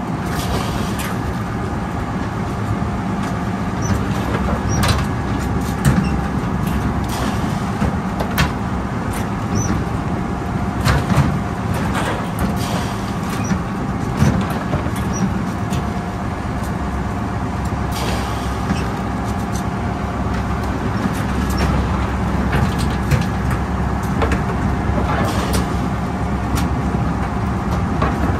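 Crab boat's engine running steadily, with water rushing along the hull. Irregular metallic clanks and rattles of wire crab pots being hauled and handled sound over it.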